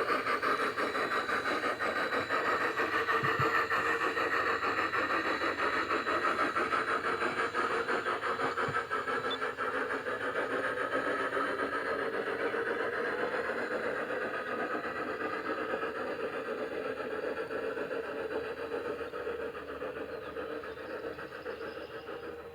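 Bachmann K27 model steam locomotive running along the track: a steady running sound with fine rapid ticking that slowly fades and drops away near the end as it moves off.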